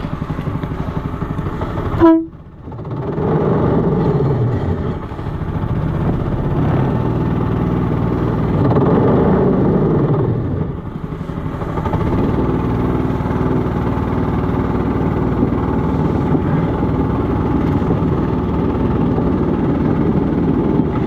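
Small petrol engine of a motorized railcart running under way, its pitch rising and falling as the throttle opens and eases off. A sharp loud knock about two seconds in is followed by a brief cut-out of the sound.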